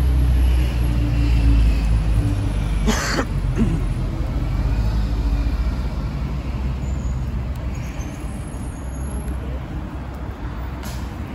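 Road traffic: a vehicle engine's low rumble, loudest over the first few seconds and then fading away, with a short sharp hiss about three seconds in and another near the end.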